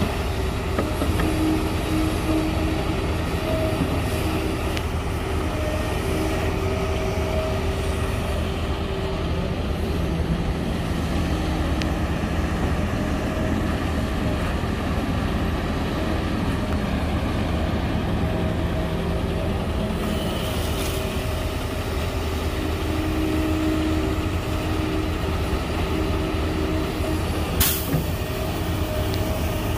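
Kobelco SK380XD excavator working: a steady low diesel drone, with pitched hydraulic whines that come and go as the boom and bucket move. A single sharp clank comes about two seconds before the end.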